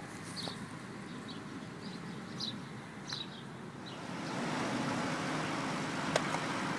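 A few short high bird chirps about a second apart over a low outdoor hum, giving way about four seconds in to steady motorway traffic noise.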